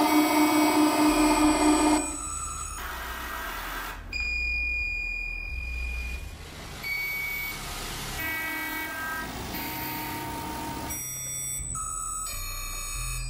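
Electronic music from a live set. A loud, pulsing synth chord cuts off abruptly about two seconds in. Then come sparse electronic beeps and sustained pure tones over low bass notes that change pitch in steps, with a stuttering glitch pattern near the end.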